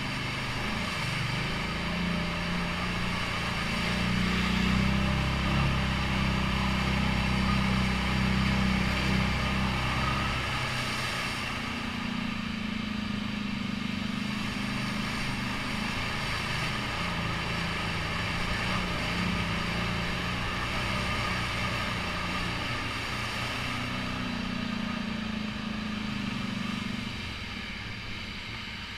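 ATV engine running as the quad rides a muddy trail through water holes, its pitch and strength rising and falling with the throttle. A heavier low rumble sits under it for about the first ten seconds.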